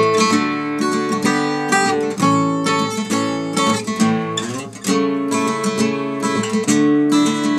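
Acoustic plucked-string instrument strung as an octave mandolin, picked in a continuous run of single notes and chords.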